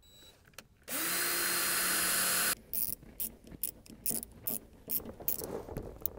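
Cordless drill boring a hole through a sheet-metal body panel: one run of about a second and a half that spins up and cuts off suddenly. It is followed by a string of irregular sharp clicks as a hand driver turns in the mounting screws.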